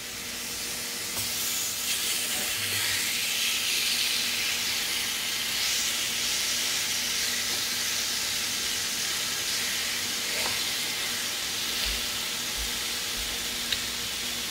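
Seasoned raw chicken thighs sizzling on the hot plate of a countertop electric contact grill. It is a steady hiss that swells about a second in.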